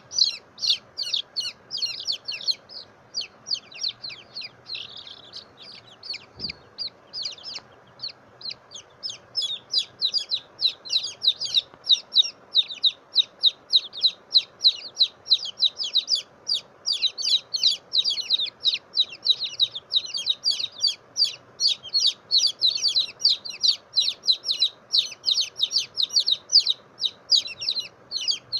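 Young chicken chick peeping loudly and insistently: short, high peeps repeated at about three a second, thinning out briefly about a quarter of the way in.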